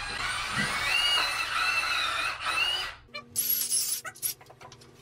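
Cordless drill cutting a 20 mm hole through plastic trunking: a noisy whirr with a wavering squeal for about three seconds, which then stops. It is followed by a few brief high chirps and sharp clicks.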